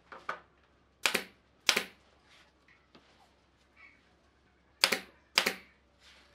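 Pneumatic brad nailer driving brads into wooden strips: four sharp shots in two pairs, each pair about half a second apart, with a couple of lighter clicks at the very start.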